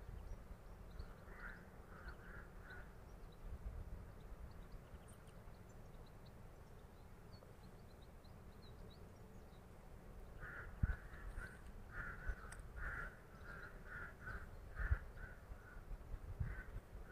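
Crows cawing in runs of short repeated calls: a few about a second in, then a longer series from about ten seconds in. Faint small-bird chirps and a few low bumps sit underneath.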